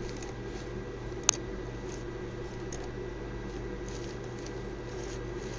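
Plastic fischertechnik monorail parts being handled and pushed by hand, with faint small ticks and one sharp click about a second in, over a steady low hum.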